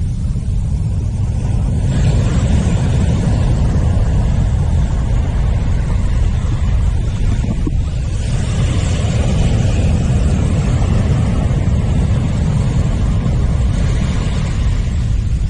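Surf washing up a sandy beach, a steady low rumble with three swells of hiss as waves run in.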